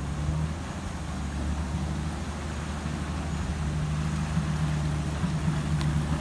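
Motor vehicle engine running steadily, an even low hum.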